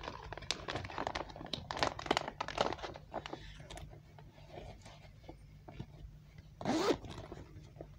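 Light clicks, crinkles and rustling as small items are handled and packed into a little fabric pouch, busiest in the first three seconds. There is one brief louder sound about seven seconds in.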